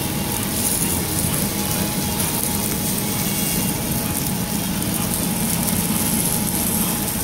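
Beef sizzling on a hot stone grill, a steady hiss over a low continuous hum.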